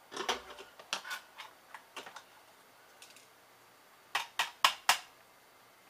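Sharp clicks and taps of a circuit board and small loose parts being handled on a workbench, then four loud knocks in quick succession about four seconds in as the motherboard is rapped to knock its hot-air-loosened components off.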